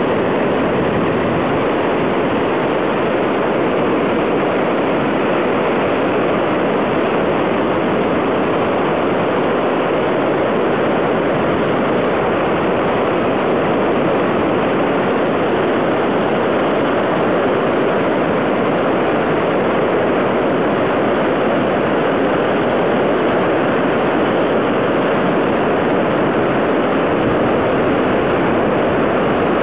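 Floodwaters of the South Esk River rushing through Cataract Gorge: a loud, steady, unbroken torrent roar.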